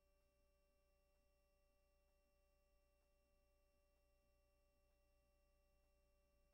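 Near silence: only a faint, steady hum of several fixed tones.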